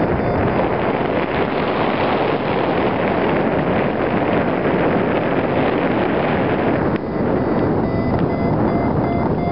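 Wind rushing over the microphone in paraglider flight. From about seven seconds in, a flight variometer beeps rapidly, about three beeps a second, the climb tone that signals the glider is rising.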